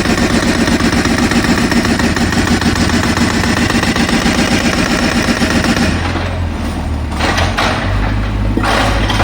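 Jackhammer breaking up the ground in a fast, continuous rattle of blows, over the low hum of a running engine. About six seconds in the hammering stops apart from a couple of short bursts, leaving the engine hum, then starts again near the end.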